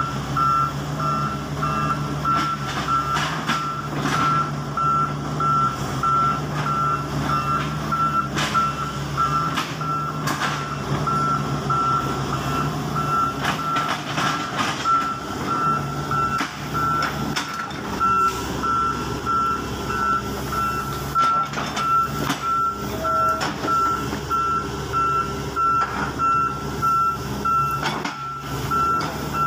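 Volvo EW145B wheeled excavator's diesel engine running while digging, with its warning alarm giving evenly spaced beeps throughout. Scattered clunks of the bucket working soil and stones.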